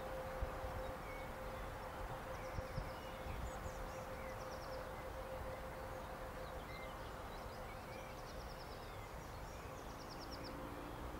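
Quiet outdoor ambience with small birds singing short trilling phrases, over a faint steady hum that fades out near the end.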